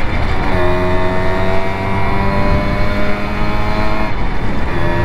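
Simson two-stroke moped engine running under way, its note climbing slowly as it pulls. The note breaks off briefly twice, right at the start and about four seconds in, then picks up again.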